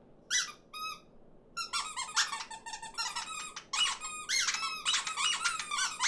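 High-pitched squeaky chatter voicing small cartoon birds, made as foley. Two short squeaks come first, then from about a second and a half in a quick, overlapping run of squeaks as several birds chatter at once.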